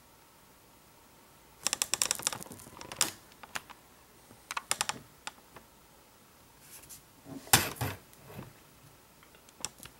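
Key and trackpad clicks on a MacBook Air: a quick run of key presses about two seconds in, a few more near five seconds, a louder knock about seven and a half seconds in, and light clicks near the end.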